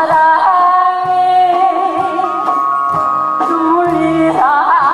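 A woman singing a Korean trot song into a microphone over a backing track with a steady drum beat, holding long notes that waver with vibrato.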